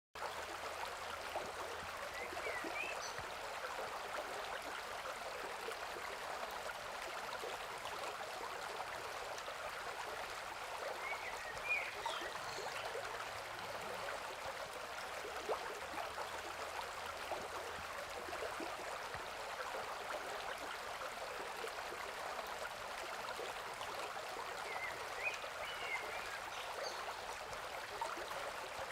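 River water flowing with a steady rushing sound. A few short bird chirps come through it, about three seconds in, around twelve seconds in, and again near the end.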